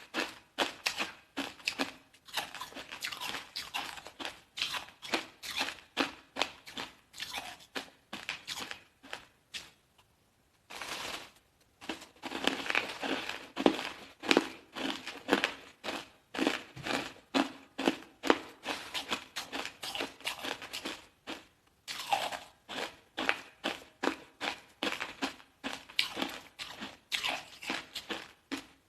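Hard ice being bitten and chewed close to the microphone: a rapid run of sharp crunches, several a second, with a short pause about ten seconds in.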